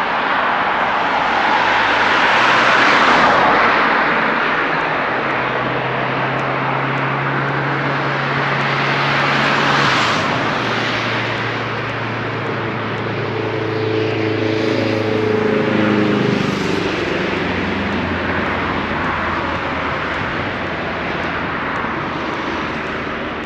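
Road traffic on a busy city street: vehicles pass close by in several swells of tyre and engine noise. A low engine hum runs through the middle, and a vehicle's tone falls in pitch as it goes by about sixteen seconds in.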